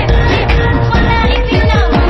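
Loud electronic dance music with a heavy bass line and falling synth sweeps in the second half.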